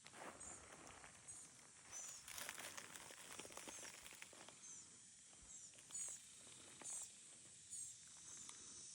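Faint outdoor ambience of short, high chirps repeating about once a second, with a stretch of crunching rustles about two to four seconds in.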